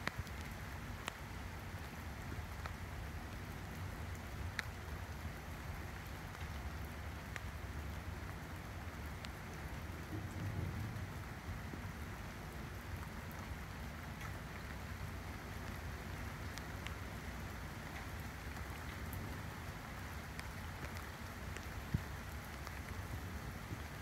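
Steady rain falling on tree leaves and grass, with scattered sharper drop ticks through the hiss.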